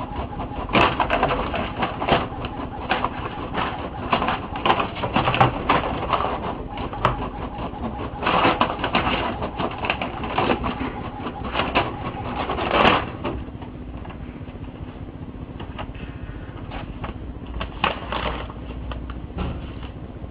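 Inkjet printer printing, its mechanism clattering in repeated passes, with paper rustling as a cat paws at the sheets coming out. The clatter is dense for the first two-thirds and thins out after that.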